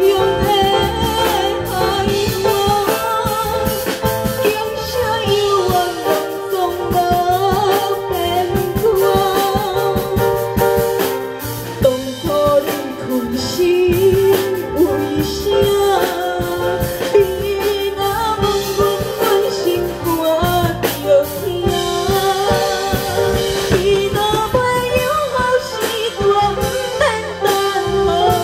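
A woman singing a Taiwanese Hokkien ballad live into a handheld microphone, over backing music with drums.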